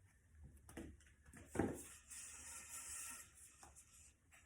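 Handling noises: a single sharp knock about a second and a half in, then a couple of seconds of soft rubbing and a few light ticks.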